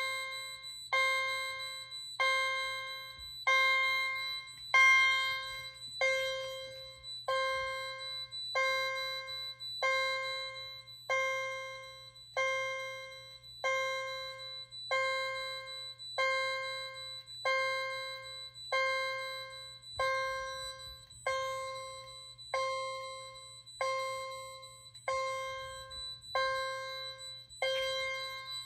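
Fire alarm chime sounding in alarm off a Cerberus Pyrotronics IXL panel's notification circuit: steady single strikes about one every 0.8 seconds, each ringing out before the next. A faint steady high tone runs underneath.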